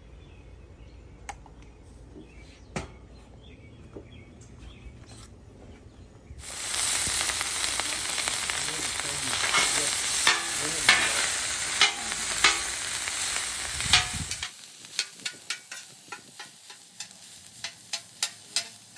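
Cold cooked rice sizzling in oil on a hot Blackstone flat-top griddle while a steel spatula scrapes and chops through it. The loud sizzle starts suddenly about six seconds in and cuts off about eight seconds later, leaving a run of sharp clicks of the spatula striking the griddle top. Before the sizzle there are only faint clicks.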